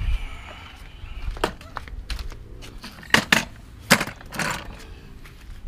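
Sharp knocks and clatter as a wooden-framed mechanic's creeper is handled and set down on tarmac, its frame and casters striking the ground; the loudest knocks come about three and four seconds in.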